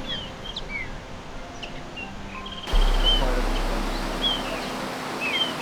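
Several small birds chirping, with short whistled notes and a brief trill. About three seconds in, a sudden low rumble starts and fades away over a couple of seconds.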